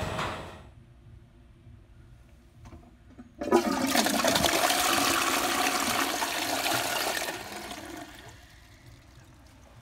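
Toilet flushing: a sudden rush of water starts about three and a half seconds in, runs for about four seconds, then dies away.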